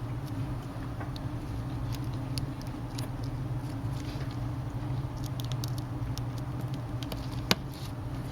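Small T6 star screwdriver tightening tiny screws into a tablet's frame: scattered light clicks and taps of the metal bit on the screw heads, with one sharper click about seven and a half seconds in. A steady low hum runs underneath.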